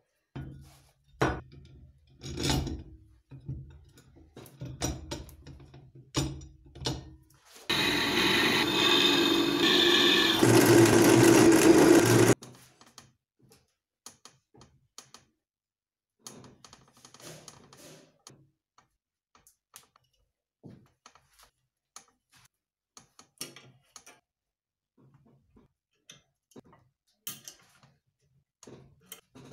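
Steel parts handled on a wooden workbench: a run of knocks and clanks, then a loud steady noise lasting about five seconds, then faint scattered clicks of hand tools such as a tap wrench and an adjustable wrench working on metal.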